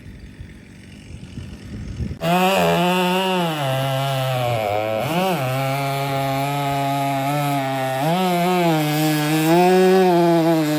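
Gas chainsaw running and cutting, coming in abruptly about two seconds in; its engine pitch dips and rises again and again as it works. Before it, only a faint low rumble.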